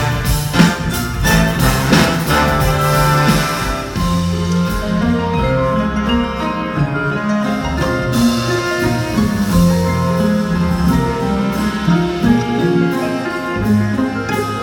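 Live orchestra playing, with sharp percussion hits for the first few seconds giving way to mostly held notes.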